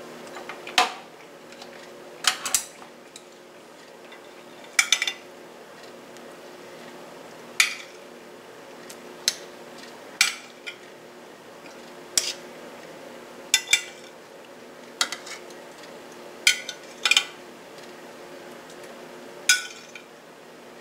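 Metal kitchen tongs clinking against a glass baking dish and a stainless steel skillet as pieces of chicken are moved into the sauce: sharp, separate clinks every second or so over a steady low hum.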